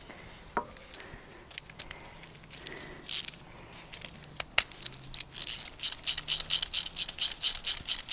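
Light metallic clicks and taps of hand tools and brake caliper parts being handled, then a quick, regular run of bright clicks, about four a second, through the second half.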